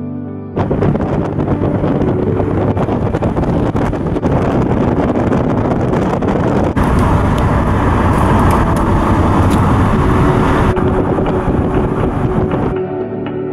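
Steady rush of wind and road noise from a moving car, louder for a few seconds in the middle. Background music cuts off about half a second in and comes back near the end.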